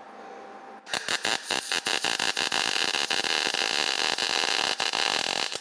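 MIG welding arc crackling irregularly, striking about a second in and held, with the torch run at a long arc.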